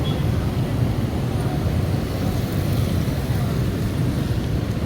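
Steady low rumble of street traffic, engines running close by.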